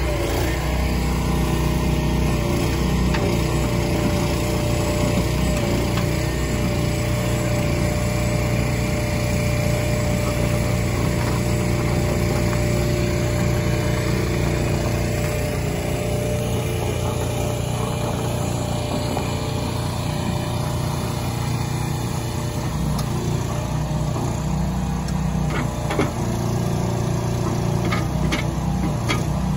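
Engine running steadily, driving the hydraulics of a tilt-bed shed-hauling trailer, with a few sharp metal clicks near the end.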